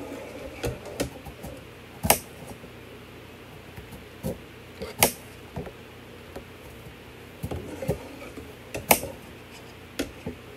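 Metal serving utensils knocking and clinking against a large glass bowl as noodles are tossed in a creamy sauce: irregular sharp knocks, the loudest about two, five and nine seconds in.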